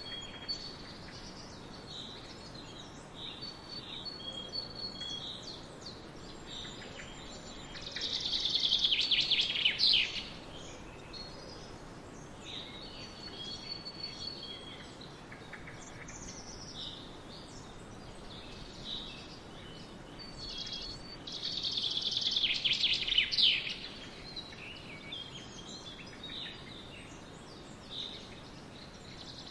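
Several wild birds calling and singing, with many short chirps and whistles. Two louder, longer songs come about eight and twenty-one seconds in, over a steady faint background noise.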